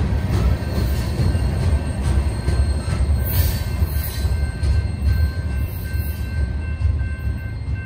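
Herzog ballast cars rolling past on the rails, a steady low rumble of wheels and trucks as the last car of the train goes by. Faint steady high-pitched tones, likely light wheel squeal, come in about halfway.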